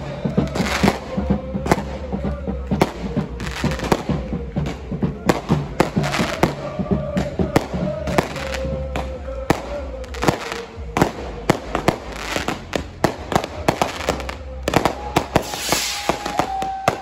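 Fireworks going off in a fast string of sharp bangs and crackles, with a rushing hiss near the end.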